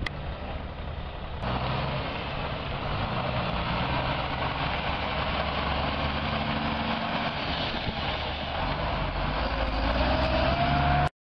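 Concrete mixer truck's diesel engine running steadily as the truck pulls out and drives past, with a rising whine over the last second or so before the sound cuts off abruptly.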